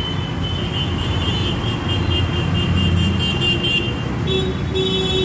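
Street traffic: passing vehicles' engines rumbling steadily.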